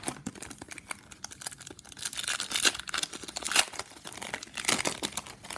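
Shiny foil wrapper of a hockey card pack being torn open and crinkled in the hands: a dense run of irregular crackles, busier in the second half.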